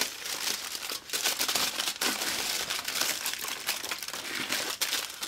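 Aluminum foil crinkling and crackling as hands crumple and press it into a deep bowl inside a plastic tub, a steady run of many small sharp crinkles.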